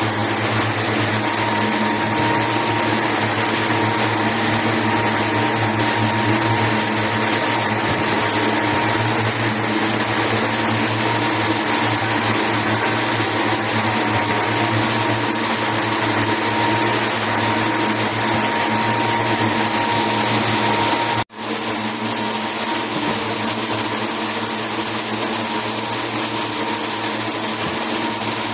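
Steady drone of textile-mill machinery, a long row of yarn-winding machines running, with a low hum and a thin steady whine over it. The noise breaks off for a split second about three quarters of the way through, then carries on.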